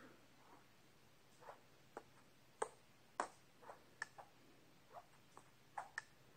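Faint, irregular clicks, about a dozen short ones scattered unevenly over a near-silent background.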